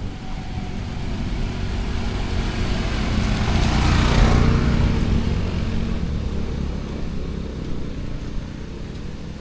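A motor vehicle passes by on the road, its engine hum and tyre noise swelling to the loudest point about four seconds in and then fading away.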